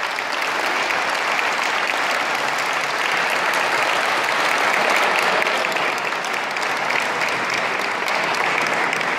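Audience applauding, a steady dense clapping that holds at an even level.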